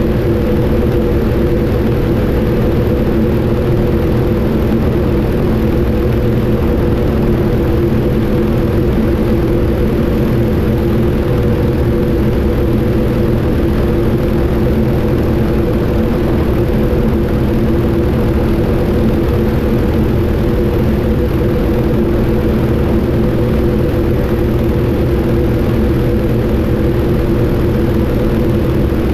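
Yak-52TW's nine-cylinder M-14P radial engine and propeller running steadily in cruise flight, an even drone with no change in pitch.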